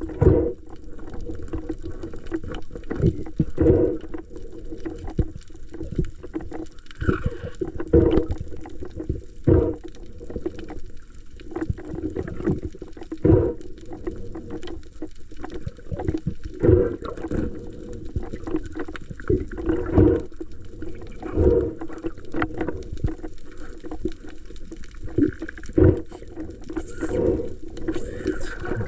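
Water sloshing and splashing in irregular surges every second or two.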